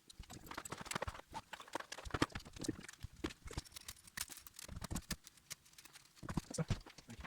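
Irregular light clicks and knocks of 3D printer parts being handled during reassembly of the Z axis, with a few louder knocks.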